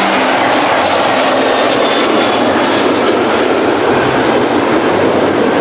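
Airliner jet engines, an Airbus A330's twin turbofans, running at takeoff thrust as the plane lifts off and climbs: a steady, loud rushing roar.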